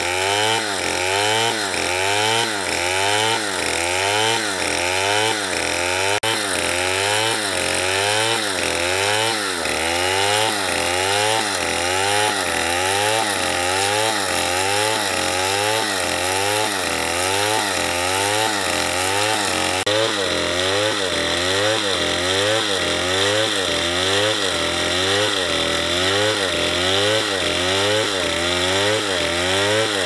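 Stihl chainsaw running at full throttle as it cuts through logs. The engine note wavers up and down in a quick, regular rhythm, about twice a second, as the chain loads and frees in the wood.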